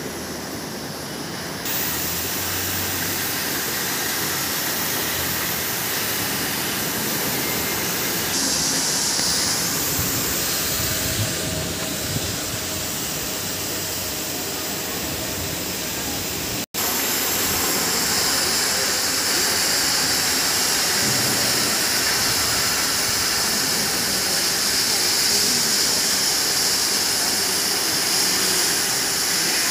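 Oxy-fuel cutting torches on a CNC profile gas cutting machine hissing steadily as they burn through steel plate. The hiss drops out for an instant just after halfway and is louder and brighter after that.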